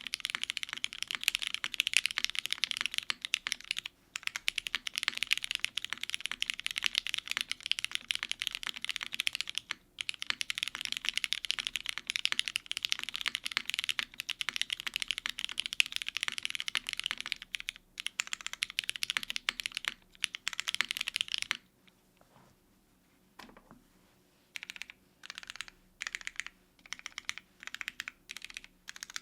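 Fast, continuous typing on a 65% mechanical keyboard: lubed Cherry MX Black linear switches in a gasket-mounted aluminium plate, with GMK keycaps. About three-quarters of the way through the typing stops for a few seconds, then returns as short, separate bursts of a few keystrokes.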